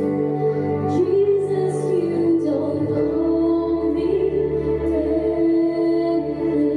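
Live worship band playing, with a woman singing a melody into a microphone over long held keyboard chords.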